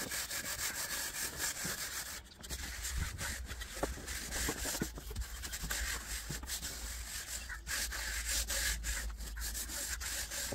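A straight-edge screed dragged back and forth over wet cement mortar, a quick run of rasping, scraping strokes as the slab top is levelled. A low steady rumble sets in underneath a couple of seconds in.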